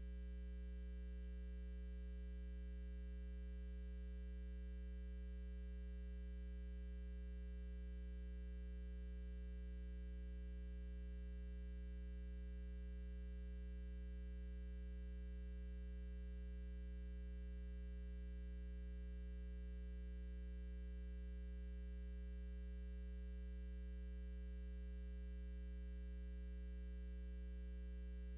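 Steady electrical mains hum with a strong low tone and a ladder of higher overtones, unchanging throughout.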